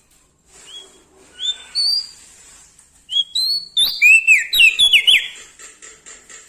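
Songbird singing clear whistled notes: a few separate rising whistles, then about three seconds in a louder, quick run of sweeping, down-slurred whistles.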